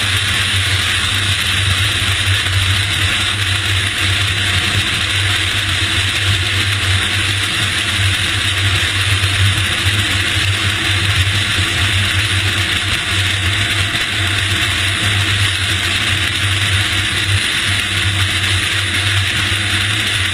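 Steady aircraft engine and airflow noise: an even hiss over a low hum, unchanging throughout.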